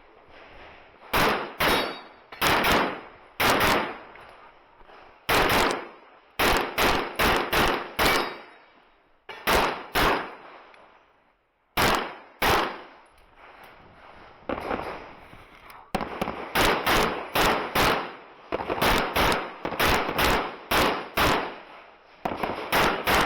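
Competition handgun shots during a timed IPSC course of fire. Many are fired as quick pairs, with short pauses between strings of shots.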